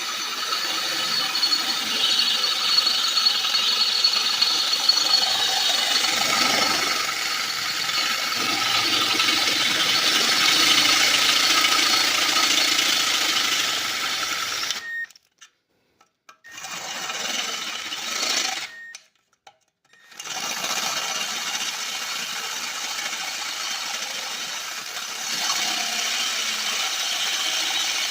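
Power drill running under load, boring into the ceramic core of a catalytic converter. It stops briefly twice, about 15 and 19 seconds in, then carries on.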